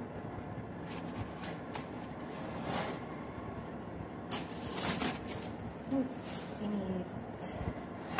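Electric oven's fan humming steadily with the door open, with a few brief rustling and handling noises around the dish and its foil cover.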